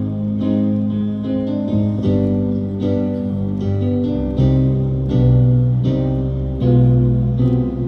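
Instrumental introduction to a gospel song: an acoustic guitar strumming chords over low bass notes, the chords changing every second or so.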